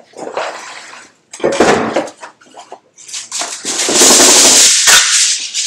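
Kitchen aluminium foil being pulled off its roll and crinkled, a loud crackling rustle for the last couple of seconds, after shorter rustles of plastic cling wrap being stretched over a baking tray.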